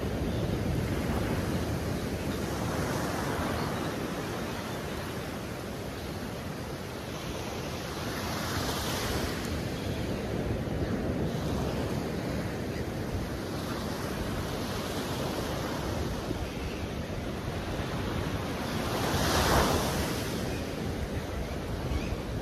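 Ocean surf breaking on the beach, the wash swelling and fading every few seconds, with the biggest wave near the end. Wind rumbles on the microphone throughout.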